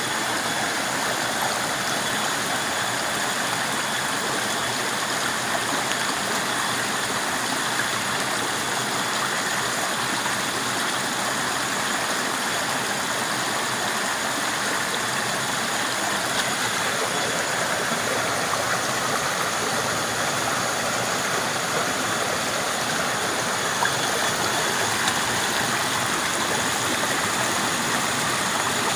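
A small, shallow forest stream running over rocks and spilling down a little cascade: a steady, even rush of water.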